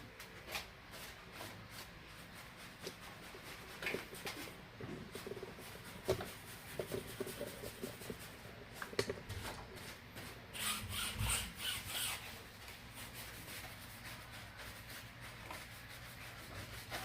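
Faint, irregular rubbing and scraping strokes of hand scrubbing or wiping during cleaning, louder for a stretch about ten to twelve seconds in.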